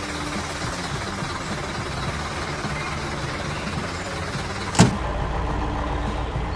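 Heavy construction machine engine running steadily, with one sharp knock just under five seconds in, after which a deeper rumble sets in.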